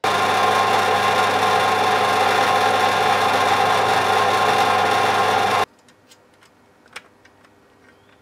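Small electric drill running steadily at speed while drilling a small hole in a thin planked model deck, cutting off abruptly after about five and a half seconds. Then a few faint clicks.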